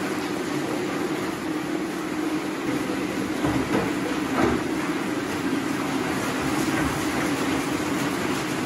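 Steady rushing hum of workroom equipment, with a few light knocks about halfway through as vases are set down on the eel tank's lid.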